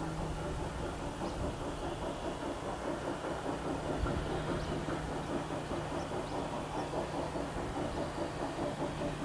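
A train running, with a steady low hum under a quick, even beat of about three pulses a second.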